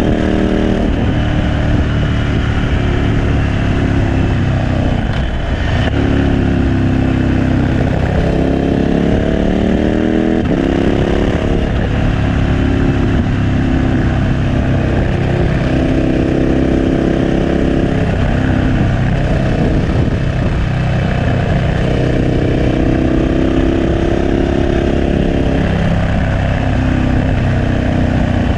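KTM 1290 Super Adventure S's V-twin engine running through a Remus 8 exhaust while riding. Its pitch climbs and falls with the throttle, with sharp drops about five and ten seconds in.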